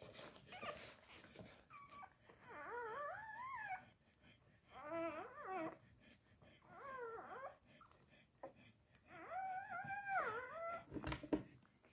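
Newborn Labrador puppies crying and whimpering as they nurse, in four bouts of high-pitched cries that waver up and down, each a second or so long with short pauses between.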